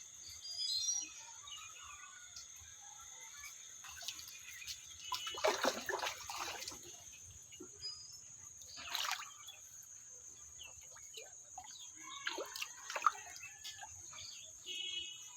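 Water splashing and sloshing in a few short bursts, over a steady high-pitched insect drone.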